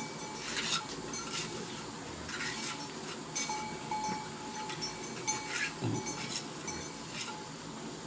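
Steel bricklaying trowel scraping and clinking against bricks and mortar: a run of short, irregular scrapes and taps.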